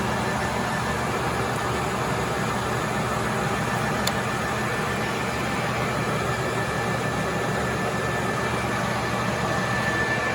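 Kent TRL-1340 geared-head lathe running with its spindle turning, a steady hum and gear whine from the headstock. A single short click about four seconds in.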